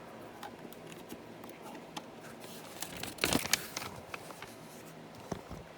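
Plastic LEGO pieces being handled and pressed together: scattered small clicks and rattles, with a louder cluster of clicks about three seconds in.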